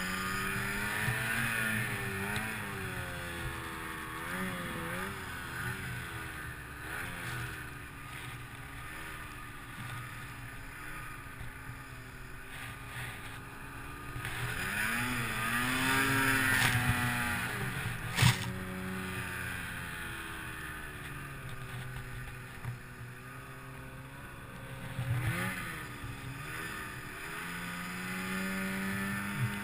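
Tuned 2008 Ski-Doo Summit 800 cc two-stroke snowmobile engine revving up and down as the sled ploughs through deep powder, its pitch rising and falling with the throttle and loudest in a long surge a little past halfway. A single sharp knock comes about 18 seconds in.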